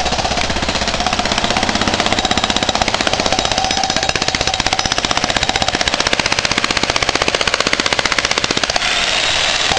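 Electric jackhammer breaking old concrete: rapid, even hammer blows with a steady whine underneath.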